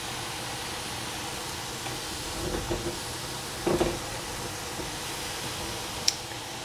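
Steady hiss from a stainless steel pot of baby bok choy heating on the stove, with two short soft sounds in the middle and a sharp click about six seconds in.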